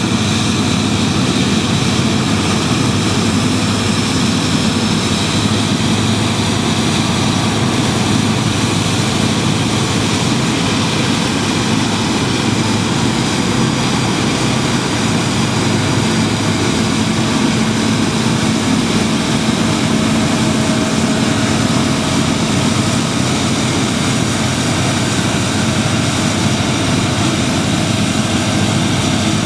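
New Holland TX68 combine harvester running steadily: a loud, even mechanical noise with a low hum that does not change.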